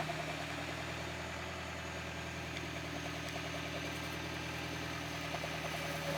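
A car engine running steadily at an even, low speed.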